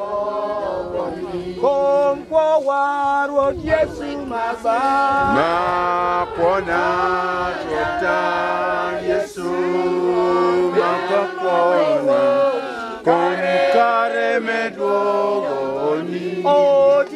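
A group of people singing a worship chant together, in long held notes that slide from one pitch to the next with short breaks between phrases.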